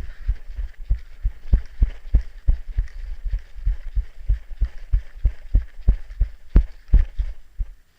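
Steady run of dull thumps, about three a second, with two stronger ones near the end: footsteps jolting a camera carried on the player's body.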